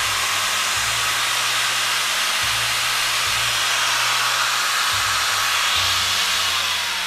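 Makita 100 mm angle grinder (720 W, 12,000 rpm) running free at full speed with a steady high whine, smooth and quiet; near the end it is switched off and starts to spin down, its pitch falling.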